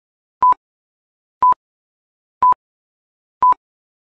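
Quiz countdown timer beeping: four short beeps of one steady tone, one each second, with silence between.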